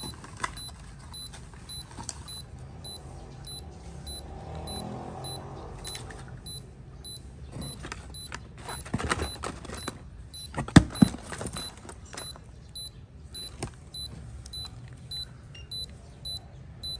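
Fingertip pulse oximeter beeping faintly with each heartbeat, about twice a second, in time with a pulse of about 100 beats per minute. A burst of clicks and knocks from another oximeter being handled and clipped onto a finger sits around the middle, with the loudest clicks about eleven seconds in.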